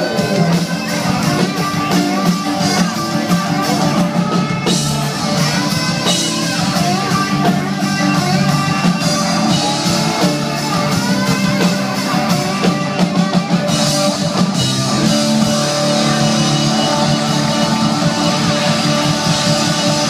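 Live rock band playing, guitar over a drum kit, amplified through outdoor PA speakers.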